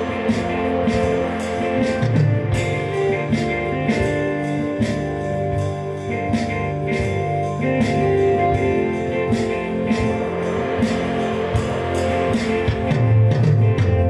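Guitar-led music with sustained notes over a steady beat.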